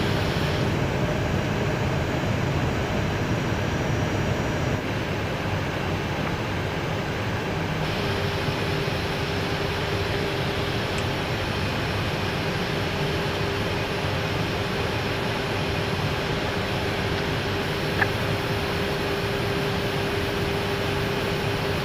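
Steady rushing noise of an Airbus A319 in flight, heard inside the cockpit: airflow and jet engines on descent. A faint steady tone runs over it, missing for the first several seconds, with one small click near the end.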